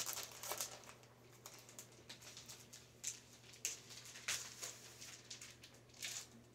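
Faint scattered rustles and light taps of packaging being handled while an item is unwrapped, a few sharper clicks among them.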